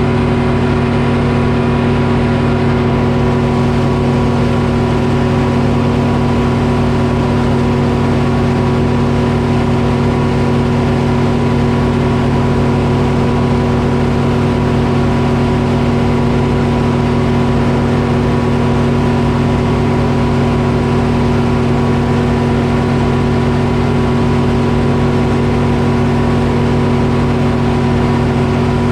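Detroit Diesel engine powering a Frick sawmill, running at a steady speed.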